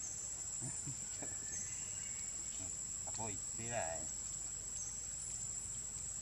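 Steady high-pitched insect drone. Faint distant voices come in briefly about a second in and again around three to four seconds in.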